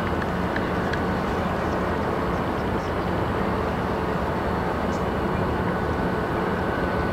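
A steady noise with a low hum underneath, holding at one even level.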